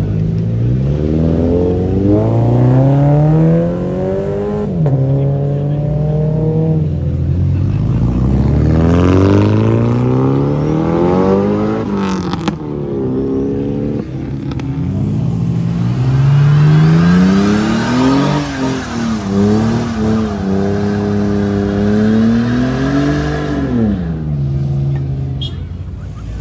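Performance car engines accelerating away one after another, each revving up through the gears. The pitch climbs steeply and drops at each shift, with a few quick revs in between.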